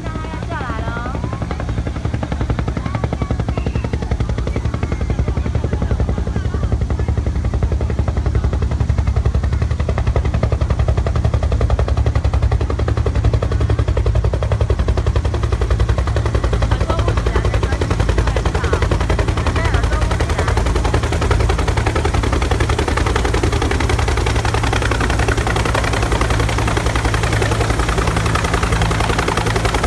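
Helicopter's main rotor beating rapidly in a fast, even chop as the helicopter comes in to land, growing louder over the first few seconds and then holding steady.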